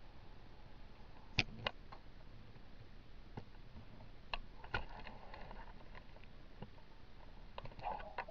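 A few faint, scattered clicks and knocks over a quiet background, with no engine running.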